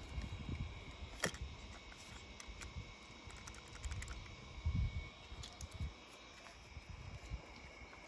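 Faint clicks and light taps of a small toy car being handled and pressed into a plastic tub of paint, with one sharper click about a second in and a few soft low thumps.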